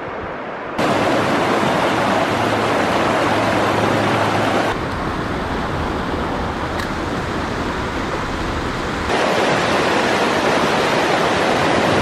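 Mountain stream rushing over rocks and rapids, a steady loud noise that jumps abruptly in loudness three times, about a second in, near five seconds and about nine seconds in.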